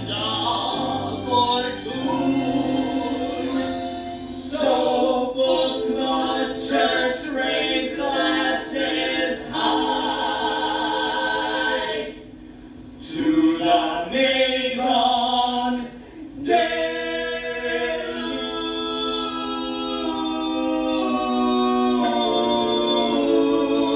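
Several voices singing together with musical accompaniment, a musical-theatre number. After two brief breaks, the voices settle into long held notes in the last several seconds.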